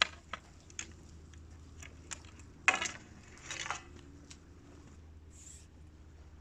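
Scattered clicks and knocks from fishing rods and tackle being handled while the rods are set up, the loudest knock about two and a half seconds in, over a low steady rumble.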